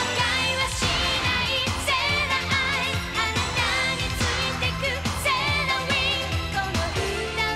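Anime opening theme song: Japanese pop with a woman singing the lead over a steady drum beat and synthesizer chords.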